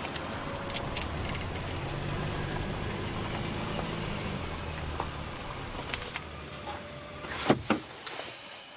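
A small Mini convertible drives past with a steady low engine hum and tyre noise, loudest around the middle and then fading. Near the end come two sharp clicks.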